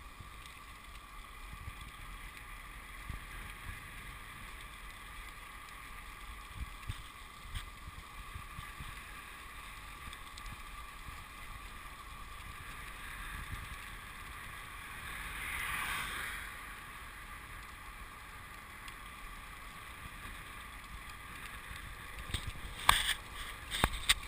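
Steady wind and tyre noise on a microphone riding along on a moving road bicycle. A swell of louder noise builds and cuts off about two-thirds of the way in. A few sharp knocks come near the end.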